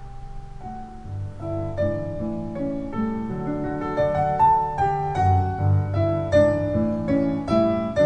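Recorded solo piano playing back through a hi-fi system's loudspeakers: struck notes, chords and runs that grow louder from about a second in.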